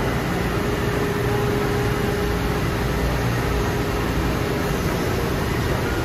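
2003 ANCA PGX CNC tool grinder running under power, with coolant spraying inside its grinding enclosure: a steady hum over an even rush of machine noise.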